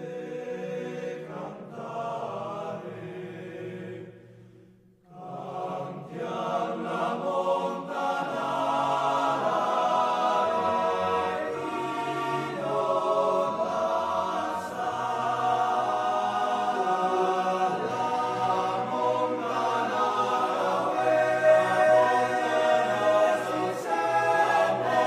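Background music of sustained, choir-like voices holding long chords. It fades almost to silence about four seconds in, then comes back fuller and louder a second later.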